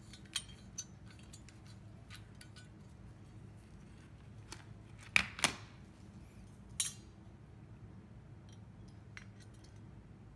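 Small metallic clicks and taps of multimeter probe tips and test leads being handled against a metal oven lamp socket during a continuity check. The loudest is a pair of sharp clicks about five seconds in.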